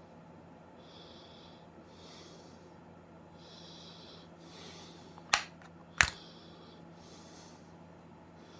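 Soft, regular breathing through the nose close to the microphone, over a steady low hum, with two sharp clicks about two thirds of a second apart just past the middle.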